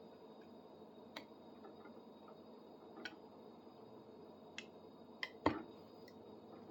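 Scattered sharp clicks of a craft knife cutting into hardwood, about five over several seconds, with one louder knock about five and a half seconds in.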